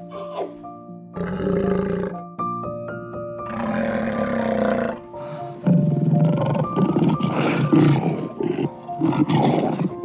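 A large animal roaring in four rough calls, the longest about three seconds, over soft background music with steady sustained notes.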